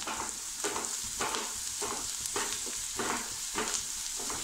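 Chopped onions sizzling in a nonstick kadai, stirred with a wooden spatula whose strokes scrape the pan regularly, nearly twice a second, over a steady frying hiss.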